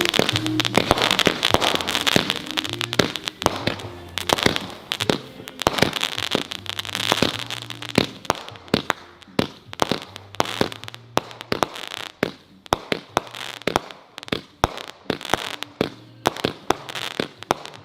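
A 65-shot, 500-gram cake firework going off. For the first several seconds it gives a dense run of shots and crackle; from about halfway it gives separate sharp reports, two or three a second. Background music plays underneath.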